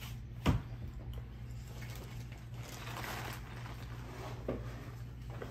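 Eating sounds at a table: a plastic fork knocks sharply against a plate about half a second in, then a stretch of rustling and handling noise around the middle, over a steady low hum.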